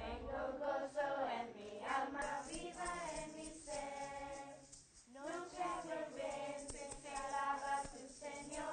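A group of children singing together in unison, in sustained sung phrases with a short break about five seconds in.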